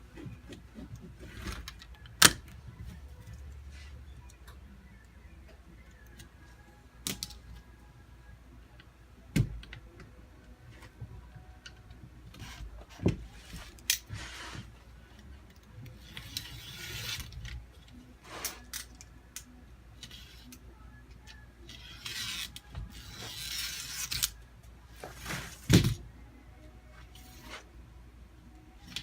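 Hand work on a window screen repair: scattered sharp knocks and clicks of tools against the screen frame, with two longer stretches of scratchy rubbing from the screen mesh being worked into the frame.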